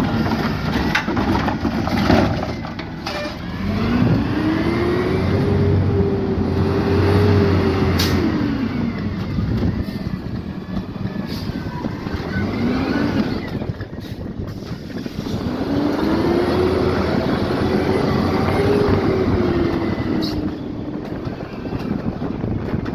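Peterbilt 520 garbage truck with a Heil Rapid Rail automated side-loader arm working: the engine revs up, holds and drops back twice as the hydraulic arm cycles, with a few sharp knocks along the way.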